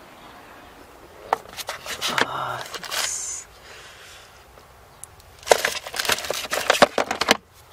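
Fingerprint kit being opened and its contents handled: small clicks, knocks and scraping in two bursts, the first about a second in and the second from about five and a half seconds in.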